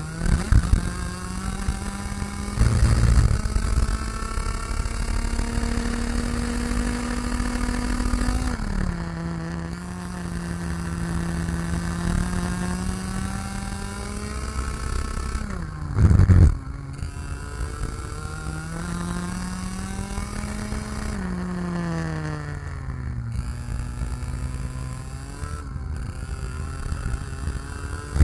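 IAME X30 Senior 125cc two-stroke kart engine running at racing speed, heard on board: its pitch climbs slowly along the straights and drops several times as the driver slows for corners. A few short, loud low thumps come through, the loudest about halfway through.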